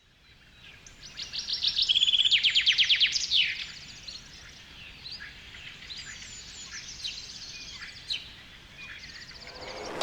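Birdsong: a loud, rapid trilling song in the first few seconds, then scattered quieter chirps and calls over a faint steady hiss.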